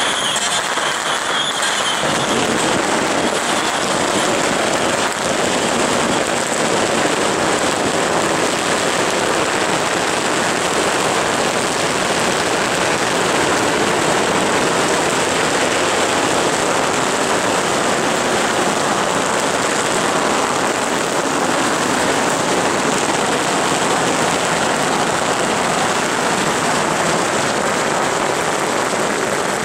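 Long strings of firecrackers going off without a break, a dense, steady crackle.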